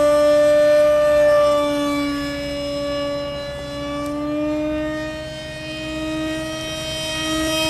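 Scratch-built RC model F-18 flying past, its motor giving a steady whine that wavers slightly in pitch, fading a little in the middle and growing louder again near the end.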